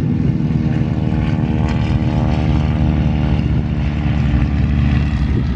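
Radial piston engines of several Stearman-type biplanes at full takeoff power as they lift off together in formation: a loud, steady, overlapping propeller drone.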